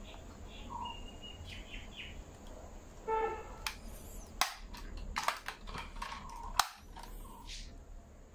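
Sharp clicks and taps from a 1:24 scale diecast metal Range Rover Evoque model being handled, its opening front doors and bonnet clicking as it is turned and closed up. The clicks come in a cluster between about three and seven seconds in, the loudest near the end, and a short pitched squeak comes just before them.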